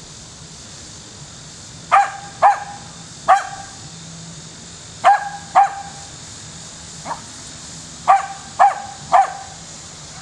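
Mountain Feist squirrel dog barking at a tree, treeing a squirrel: short, sharp barks in clusters of three, two and three, with a fainter single bark between.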